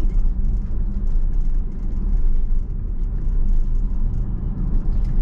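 Steady road and tyre noise inside a Tesla electric car's cabin, driving at about 30 mph: a continuous low rumble.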